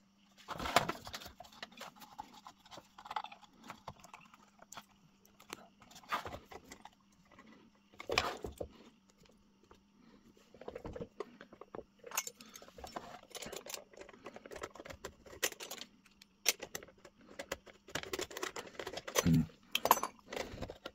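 Hands working a metal lamp-holder fitting and its cable: scattered clicks, small rattles and scrapes of metal parts, irregular and without rhythm.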